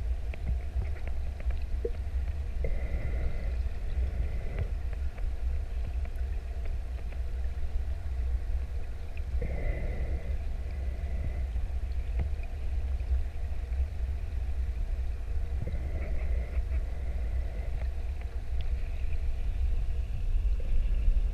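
Underwater ambience picked up by a submerged camera: a steady low rumble with scattered faint clicks and a few brief soft hisses.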